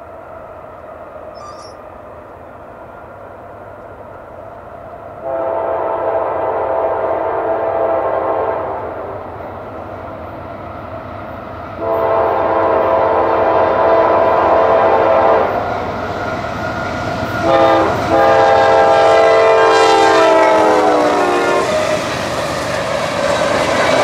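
CSX freight locomotive's multi-chime air horn sounding the grade-crossing signal: long, long, short, long, with the chord dropping in pitch at the end of the last long blast as the locomotive passes. Train rumble runs underneath and swells into the noise of cars rolling by near the end.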